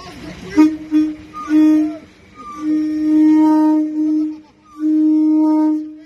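Horn of a Class 390 Pendolino electric train sounding a string of blasts on one steady note: three short toots, then a long blast of nearly two seconds and a final one of about a second.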